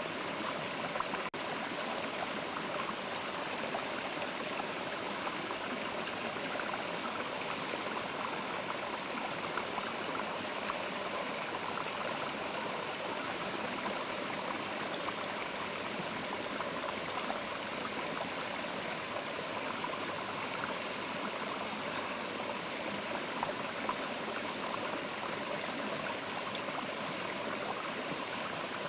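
Mountain river flowing steadily over stones, an even, unbroken rush of water.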